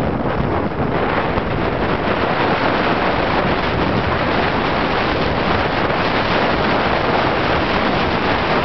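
A loud, steady rush from skiing downhill at speed: wind buffeting the microphone mixed with skis sliding over packed snow.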